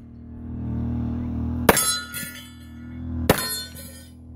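Two sharp gunshots about a second and a half apart, each followed by a ringing metallic tail, over a steady low hum.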